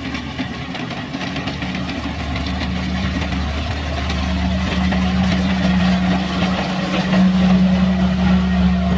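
Kubota combine harvester's diesel engine running steadily with a low hum, growing gradually louder.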